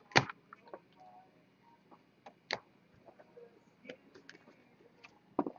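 Trading cards being set down onto piles on a wooden table: scattered light taps and clicks, the loudest about a quarter second in and a small cluster near the end.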